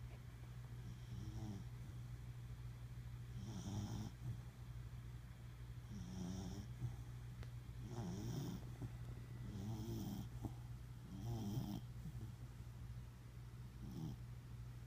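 A corgi snoring in its sleep, about seven snores one every two seconds or so, over a steady low hum.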